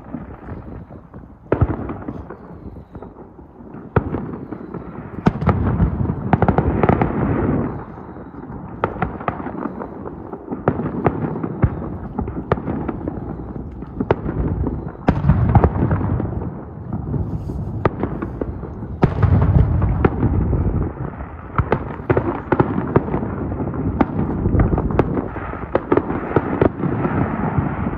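Aerial fireworks display: a dense barrage of shell bursts, many sharp bangs and crackles over a continuous low rumble. The bursts come thickest and deepest about a quarter of the way in, just past halfway and around two thirds through.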